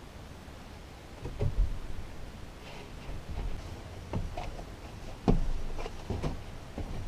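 Four knocks and thumps of wooden floor panels being handled and set in place in the back of a van, the loudest about five seconds in, with fainter clicks between.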